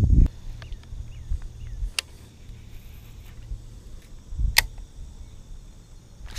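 Baitcasting reel handled during a short flipping cast: sharp single clicks about two seconds in and again a little past four and a half seconds, with another at the very end, over a low wind rumble on the microphone and a few faint high chirps early on.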